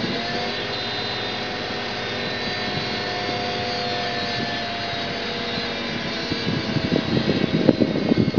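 BMW E36 328i's M52 straight-six held at steady raised revs, with a steady whine from the engine bay coming from one of the belt-driven parts (tensioner, pulley, alternator or power steering pump are the suspects). Near the end the pitch eases slightly and a rough crackling noise grows over it.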